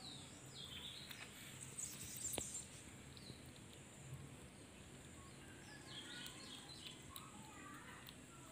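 Faint ambience with small birds chirping a few times in the background, and a kitten gnawing on a raw chicken foot, with a sharp click about two seconds in.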